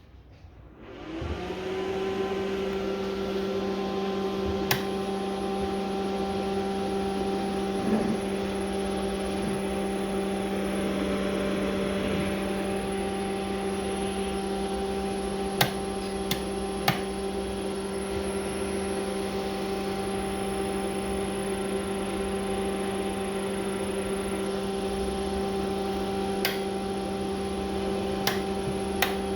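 Electric motor driven by a repaired Delta VFD-B inverter, ramping up about a second in with a quick rising pitch, then running at steady speed with an even electric hum and a faint high whine. A few sharp clicks come now and then.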